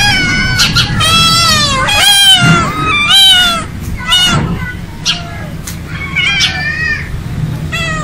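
Several domestic cats meowing, a run of overlapping, pitch-bending meows that thins out for a moment in the middle.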